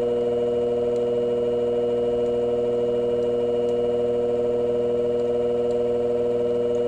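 Motor of a shear-sharpening machine running with a steady, even hum, while a micro bevel is honed onto a hair shear blade.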